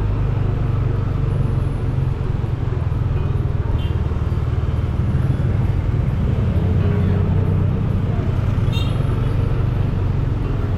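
Steady low rumble of motor vehicle traffic on a busy street, engines running continuously.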